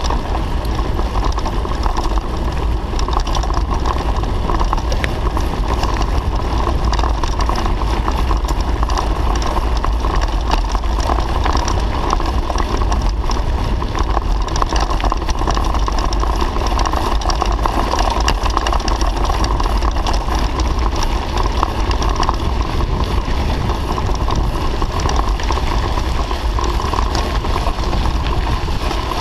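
Mountain bike rolling over a gravel road: tyres on loose gravel and the bike rattling, with steady wind rumble on the handlebar-mounted camera's microphone.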